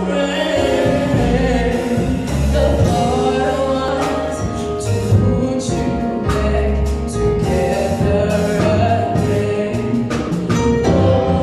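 Gospel worship band playing: a woman leads the song, with backing singers joining in harmony, over electronic keyboard and a drum kit keeping a steady beat.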